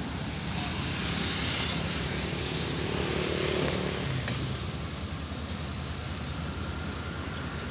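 Davenport diesel locomotive's engine running with a steady low rumble. A swell of hissing noise rises and fades from about one to four seconds in.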